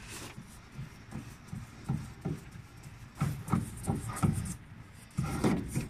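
Air dryer cartridge of a Mercedes-Benz Actros truck being twisted off its housing by hand: irregular rubbing and scraping of the metal canister, with clusters of knocks about three seconds in and again near the end.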